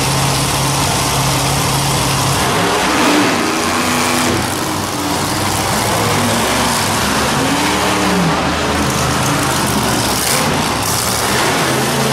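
Monster truck engines running loudly at high revs, their pitch rising and falling several times as the trucks accelerate and back off.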